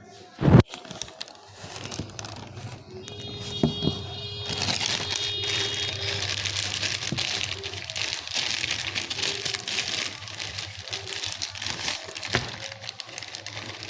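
Delivery packaging being opened by hand: a sharp knock about half a second in, then continuous crinkling and crackling of the wrapping as it is pulled open.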